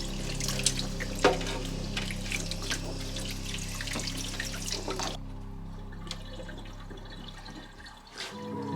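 Water running from a tap with splashes, over soft background music; the water stops abruptly about five seconds in.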